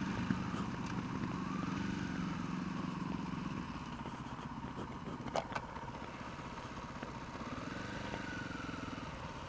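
Motorcycle engine running at low revs, a steady low hum that slowly fades, with a single sharp click about five seconds in.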